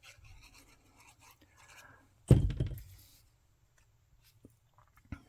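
Faint paper handling, then a single dull thump on the work table about two seconds in, with a couple of small clicks near the end.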